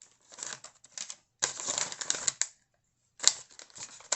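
Crackly rustling and small clicks in three short spells, as crinkly material is handled close to the microphone.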